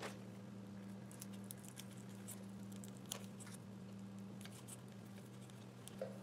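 Faint small ticks and rustles of hands handling an engine wiring bundle and tape, over a steady low electrical hum.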